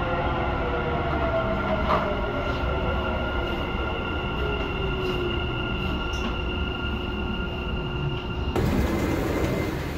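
Dubai Metro train running between stations, heard from inside the car: rumble of wheels on the track under a steady electric motor whine. One whine tone falls in pitch over the first few seconds, and a few faint clicks come through. Near the end the whine cuts off abruptly and gives way to a brighter hiss.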